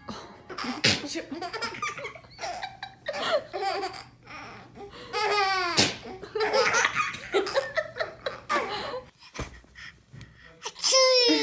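People laughing, in bouts of rising and falling laughter, broken by a few short sharp bursts.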